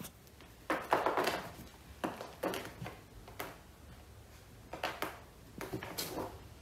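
Irregular knocks and scuffling from two cats tussling on a carpeted cat tree: about eight short thumps and rubs at uneven intervals, the longest a scrape about a second in.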